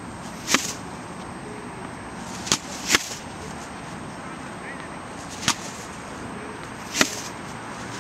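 Tennis balls hit by a racket and bouncing on a hard court: five sharp pops, two of them close together about two and a half seconds in.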